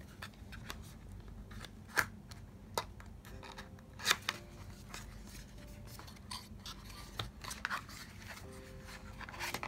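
Hands opening a small cardboard product box: card scraping and rubbing, with scattered sharp clicks and taps, the loudest about two and four seconds in and a few more near the end.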